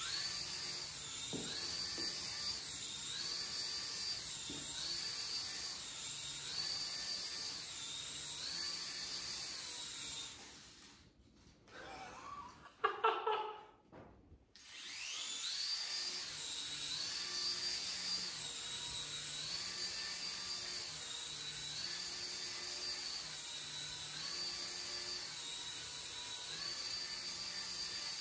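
Small propeller motors of a Force1 Orbiter flying orb toy whining at a high pitch. The pitch steps up and down about every second as the toy's hand sensor speeds the rotors up and slows them down. The whine cuts out for a few seconds about ten seconds in, with a short loud sound in the gap, then starts again.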